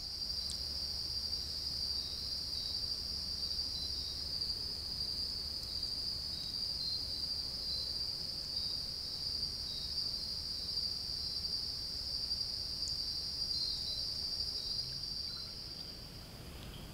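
Night insect chorus: crickets trilling steadily at a high pitch, fading out near the end.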